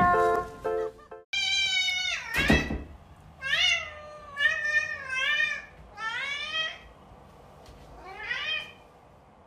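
A domestic cat meowing repeatedly, about six meows: loud, drawn-out calls about a second and a half in, then shorter meows every second or so, each rising and falling in pitch, the last near the end.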